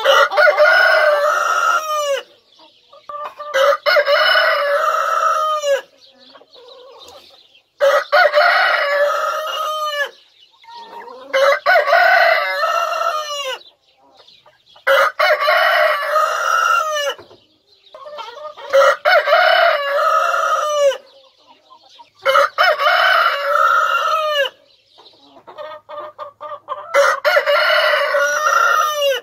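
Rooster crowing over and over: eight long crows of about two seconds each, one every three to four seconds, with hens clucking softly between them.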